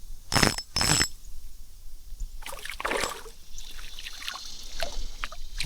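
Creek water splashing and sloshing: two sharp splashes about half a second and a second in, then softer irregular splashing and sloshing.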